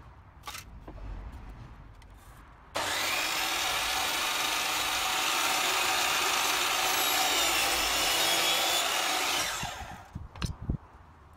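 DeWalt sliding mitre saw starting up about three seconds in and cutting a bevel through a piece of MDF board, running for about seven seconds, then winding down. A few sharp knocks follow near the end.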